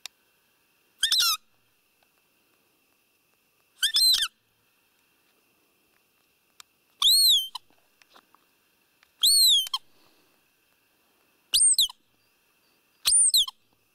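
Roe deer call (a hand-blown squeaker) blown six times, each a short, high-pitched squeak that rises and falls in pitch, about every two to three seconds. It imitates a roe doe's piping during the rut, to lure a buck in.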